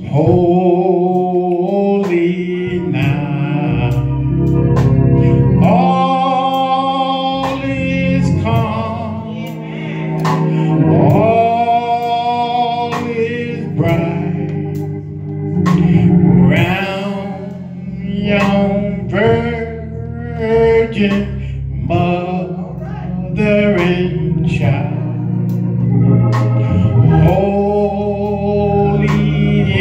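A small men's gospel choir singing through microphones, with a Hammond organ accompanying them under sustained bass notes.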